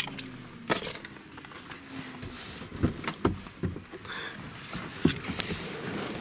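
Keys jangling and scattered clicks and rustling as a man moves about in a parked truck's cab, with the handheld camera brushing against his clothes.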